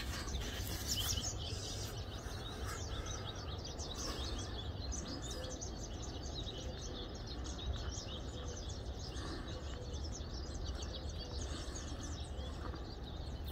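Small birds chirping in a busy chorus of short, high calls, over a low steady background rumble.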